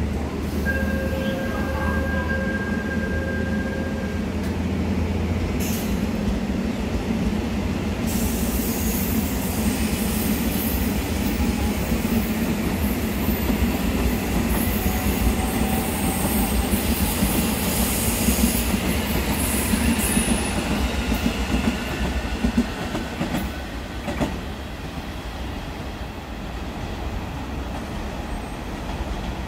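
Seoul Line 1 rheostat-control electric multiple-unit train running past on the tracks, a steady rumble with high wheel squeal through the middle. The sound drops off about two-thirds of the way through as the train moves away.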